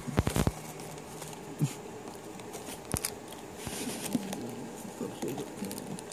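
Rustling, tapping and clicking of a small cardboard doughnut box as a pet rat rummages inside it, with a quick cluster of sharp clicks just after the start and scattered taps and scrapes after.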